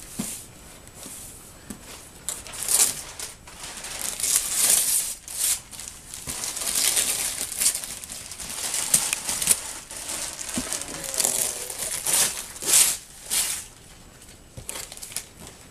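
Christmas wrapping paper being ripped and crumpled by hand off a large cardboard box, in a series of irregular rustling tears.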